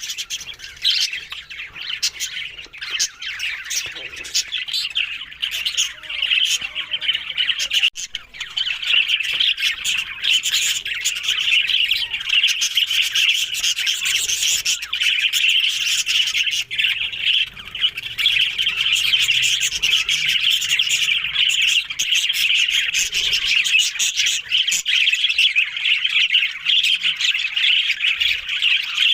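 Parrots chattering and squawking: a dense, unbroken stream of chirps and short calls.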